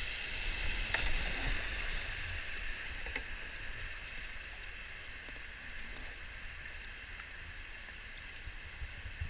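Creek whitewater rushing steadily around a kayak running a slide, heard close, over a low rumble on the microphone. It is a little louder in the first two seconds, then eases off.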